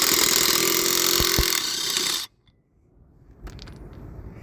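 Impact wrench running loudly for about two seconds to take off a lug nut, then stopping abruptly. A few faint clicks follow near the end.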